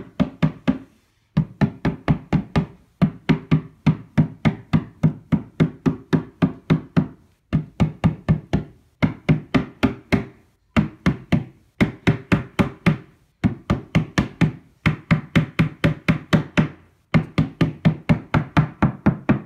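Mallet striking an IKEA Kallax particleboard divider panel in quick runs of blows, about four or five a second with short pauses between runs. The blows drive the panel down onto its wooden dowels.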